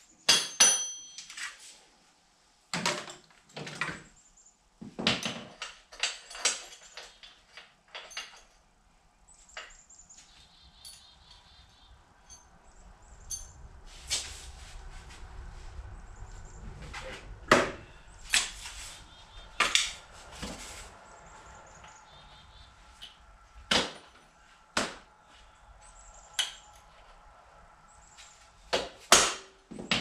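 Hand tools and metal parts clinking, knocking and clattering at irregular intervals, with a tool chest being rummaged, while a motorcycle's rear wheel is taken off. A brief metallic ring comes just after the start, and a faint steady hum sits underneath from about a third of the way in.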